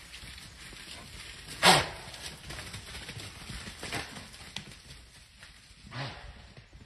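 Short, harsh calls from a large wild animal: a loud one about a second and a half in, a fainter one around four seconds, and another loud one about six seconds in, over faint forest background.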